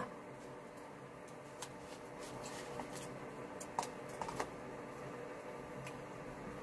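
Scattered light clicks and taps as tofu is tipped from a plastic container into a steel pot and scraped out with a wooden spoon, over a faint steady hum.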